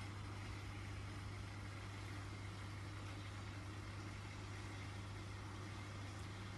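Steady low hum under a constant hiss, unchanging throughout.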